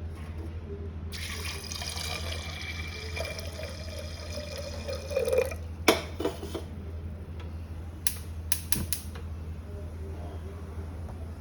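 Water running into a vessel for about four seconds, starting about a second in and stopping about five and a half seconds in. A few sharp knocks follow, the loudest just after the water stops, and a steady low hum runs underneath.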